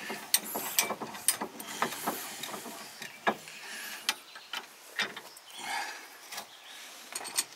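Irregular metallic clicks, clinks and knocks as a bench vise is tightened and an Aeroquip hose fitting is handled and worked in its jaws.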